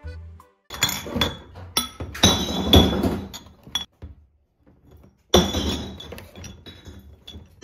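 Dishware clinking as it is handled, a run of light knocks with a bright ring, pausing for about a second past the middle before more clinks.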